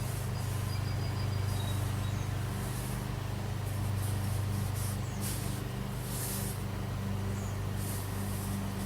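A steady low hum runs throughout, with a series of short, high, hissing swishes, likely thread being drawn through the blind's fabric during hand-stitching.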